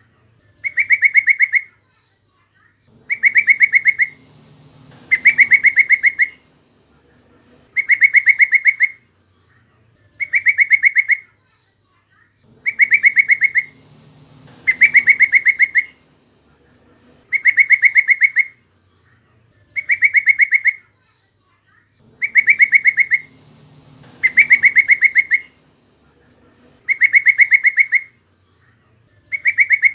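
Sooty-headed bulbul calls: a chattering burst of rapid, evenly spaced notes about a second long, repeated every two seconds or so. A faint low rumble sounds between some of the bursts.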